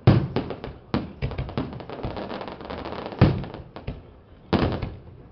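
Aerial fireworks bursting: four sharp bangs, about a second in, near the start, a little past three seconds and about four and a half seconds in, with dense rapid crackling between them.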